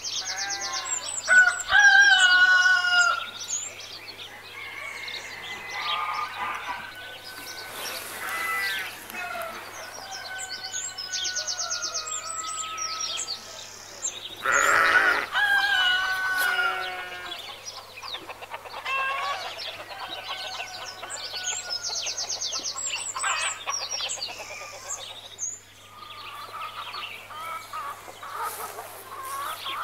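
Farmyard ambience of roosters crowing, hens clucking and small birds chirping. The same stretch of calls repeats about every eleven seconds, as a looped background track does.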